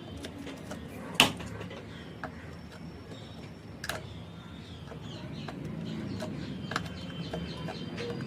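A few sharp taps, the loudest about a second in, over a steady low background hum, with faint bird chirps.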